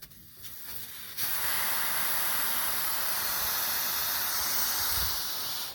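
Compressed air hissing out of an 8-gallon Campbell Hausfeld portable air compressor's tank: a faint hiss that jumps to a loud, steady hiss about a second in, then cuts off suddenly near the end.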